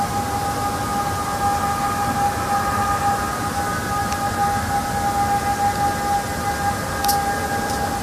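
A steady, horn-like drone of several held pitches that do not rise or fall: one of the unexplained 'strange sounds in the sky' hums.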